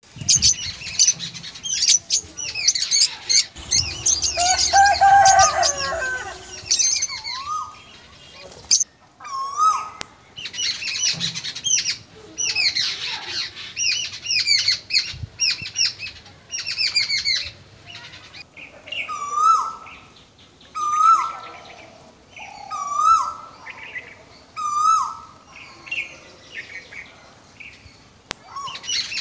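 Many birds chirping and calling together in a dense chorus. In the second half, one call repeats about every two seconds, each with a short rising hook.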